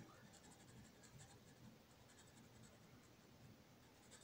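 Felt-tip pen scratching faintly on sketchbook paper in quick, short colouring strokes.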